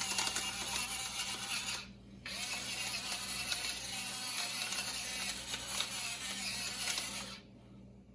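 Pepper mill grinding peppercorns, a steady gritty rasp in two stretches with a short pause about two seconds in, stopping shortly before the end.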